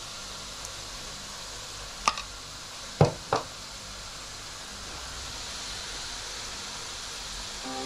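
Chips deep-frying in a pan of hot fat, a steady sizzle throughout. A clink about two seconds in, then two sharp knocks about three seconds in as the sauce bowl and spoon are handled and set down.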